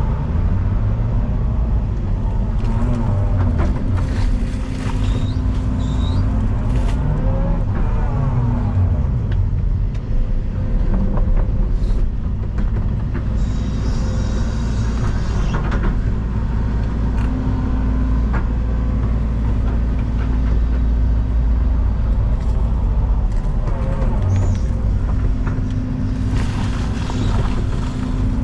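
Excavator's diesel engine running steadily under load, with a hydraulic whine rising and falling as the arm and bucket swing and dig out loose stone. A few sharp knocks come through over it.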